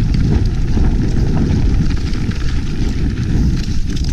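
Steady wind rumble and buffeting on an action camera's microphone as a mountain bike rides down a snowy track, with faint clicks and rattles from the bike over the ground.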